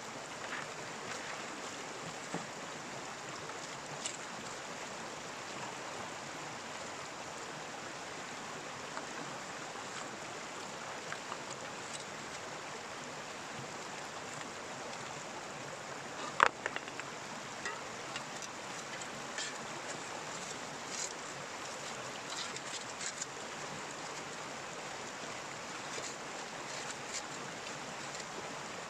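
Stream water running steadily, with scattered clicks and knocks; the sharpest, about halfway through, is the loudest.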